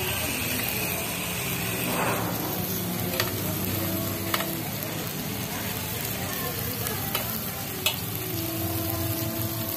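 Sliced beef, sausages and onion rings sizzling steadily on a round grill pan over a tabletop gas burner. A few sharp metallic clicks come through, from the tongs tapping the pan as the food is turned.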